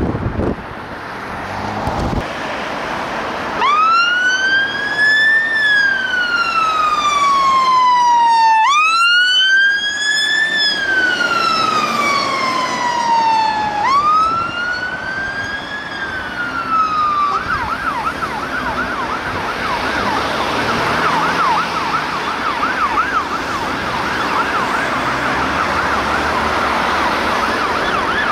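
Fire engine's electronic siren sounding a slow wail: three cycles, each rising quickly in pitch and sliding down over about five seconds. About 17 seconds in it switches to a fast yelp that carries on almost to the end, over the rumble of the truck and road noise.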